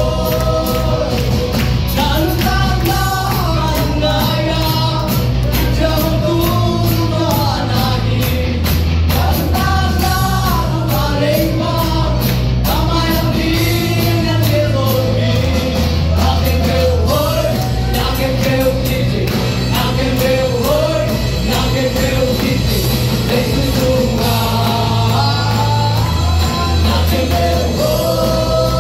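A live Christian worship song in Zomi, sung by a group of men into microphones over a band of electric guitars, keyboard and electronic drums, with a steady beat and a bass line that changes every few seconds.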